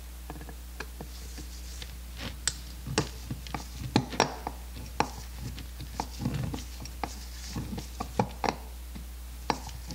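Irregular metal clicks and taps from a screwdriver working the throttle butterfly screws and from handling the Zenith-Stromberg CD-175 carburetor body, over a steady low hum.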